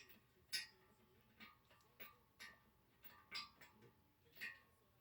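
Faint, scattered metallic clicks and taps, about six in five seconds, from small hardware and hand tools as a wheel is bolted onto the air compressor.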